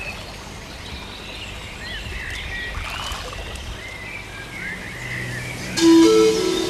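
Outdoor waterside ambience with short chirping animal calls, then background music comes in about six seconds in.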